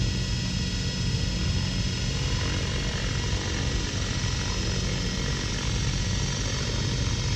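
Radio-controlled model helicopter running with a steady hum and whine at one constant pitch.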